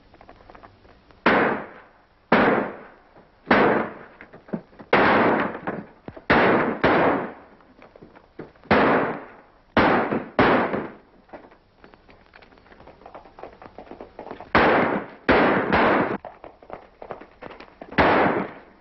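Gunshots in a shootout: about a dozen sharp shots at uneven spacing, some in quick succession, with a pause of a few seconds past the middle. Each shot trails a short echo.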